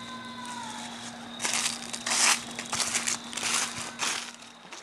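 Dry fallen leaves crunching underfoot: a string of about six crunches starting about a second and a half in.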